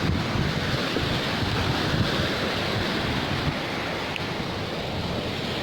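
Wind noise on the microphone over the steady wash of sea waves.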